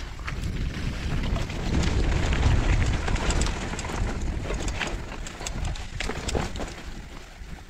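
Mountain bike riding fast downhill on a rough dirt singletrack: a low rumble of tyres and riding, loudest about two to three seconds in, with frequent sharp clicks and rattles as the bike goes over bumps.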